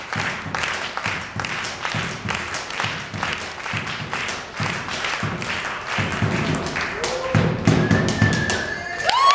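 Boleadoras, the weighted cords of a gaucho malambo dance, whirled and struck against a wooden floor in a steady rhythm of about three sharp thumps a second. The strikes grow heavier in the last couple of seconds, and cheering breaks out at the very end.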